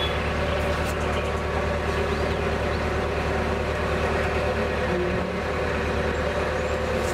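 Narrowboat's diesel engine running steadily under way, a low even drone with a fine regular pulse.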